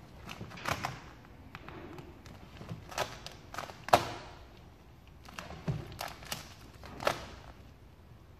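Gloss black vinyl wrap film crackling and snapping as it is pulled, stretched and pressed down by hand over a car's front grille. There are about seven sharp cracks at irregular moments, the loudest about four seconds in.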